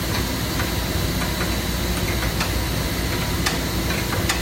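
Steady loud machinery hum and hiss, with four sharp metallic clicks of hand tools at work on the compressor's belt-adjustment hardware.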